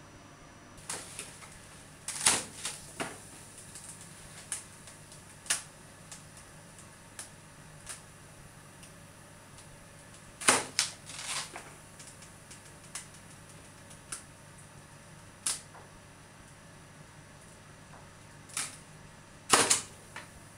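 A series of irregular sharp clicks and snaps, spaced unevenly a second or more apart. Louder clusters come about two seconds in, about ten seconds in and near the end, over a faint steady low hum.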